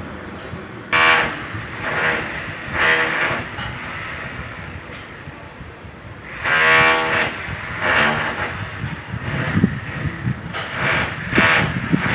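Electric rotary hammer (demolition hammer) chiselling concrete in short bursts of under a second to about a second, each a rapid buzzing hammering, starting and stopping about eight times; the longest run comes a little past halfway, and shorter bursts follow in quick succession near the end.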